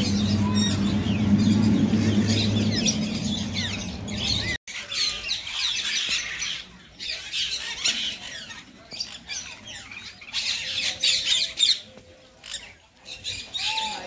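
Many aviary birds calling at once, a dense mix of high chirps and squawks. A steady low hum runs under the first four or so seconds and cuts off abruptly.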